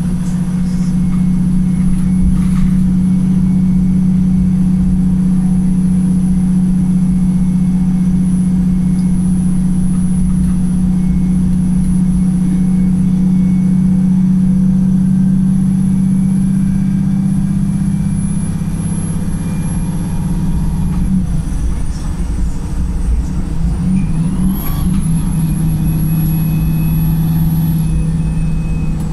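Wright Pulsar single-deck bus's diesel engine pulling steadily while running in limp mode. Its note holds one steady pitch for about twenty seconds, falls away, then picks up again a little lower a few seconds later.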